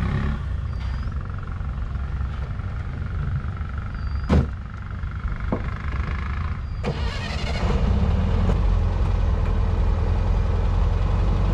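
Engine of a modified 1960 Volkswagen running, with a car door slamming shut about four seconds in and a second, lighter knock a few seconds later. The engine grows louder about eight seconds in.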